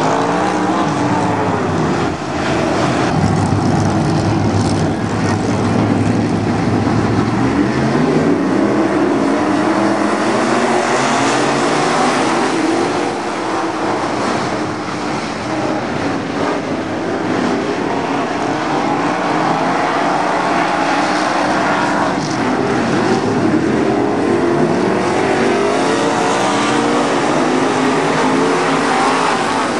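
A pack of USRA Modified dirt-track race cars running at racing speed, their V8 engines overlapping. The engine notes climb and fall over and over as the cars accelerate and lift through the laps.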